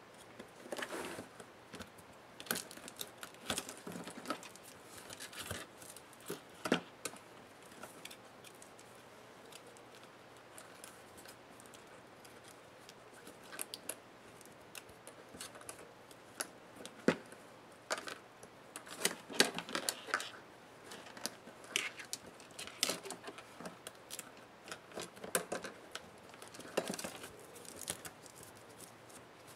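Irregular clicks, scrapes and rustling of hands taking apart a laptop's display lid: small metal hinge parts and cables handled and tape pulled off the plastic back cover.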